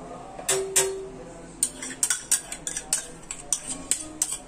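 Metal spoon clinking and scraping as yogurt is scooped from a bowl into a stainless steel mixer-grinder jar. Two sharp clinks come about half a second in, then a run of quick taps, about three or four a second, from about a second and a half on.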